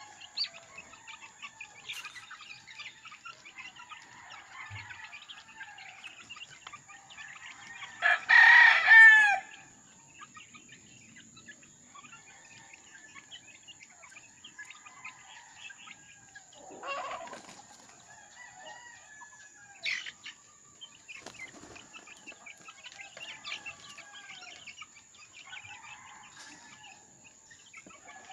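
A flock of month-old chicks peeping and chirping continuously as they feed. About eight seconds in, a rooster crows once, loudly, for about a second and a half.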